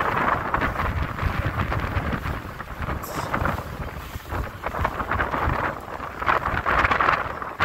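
Strong wind buffeting the microphone on the deck of a sailboat under way: a continuous low rumble with a rushing hiss that swells and fades, loudest near the start and again about seven seconds in.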